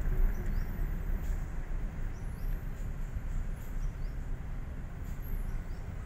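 Steady low road and engine rumble of a car driving, heard from inside the cabin, with a few faint short high chirps over it.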